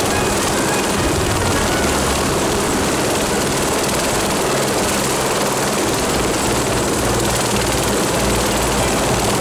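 Tour helicopter running: a steady, unbroken drone of rotor and engine noise.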